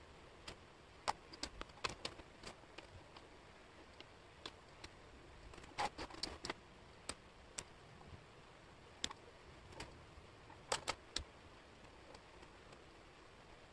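Laser-cut wooden jigsaw puzzle pieces clicking and tapping against each other and the table as they are handled and fitted. The clicks are light and irregular, a few coming in quick clusters.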